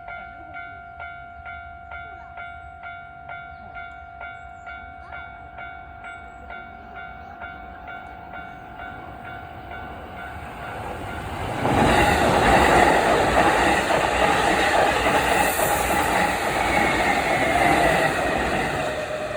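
Japanese level-crossing warning bell ringing, an electronic ding repeating just under twice a second. About two-thirds of the way through, a Hankyu electric commuter train runs over the crossing, and the loud rush of its wheels on the rails drowns out the bell for about seven seconds before easing near the end.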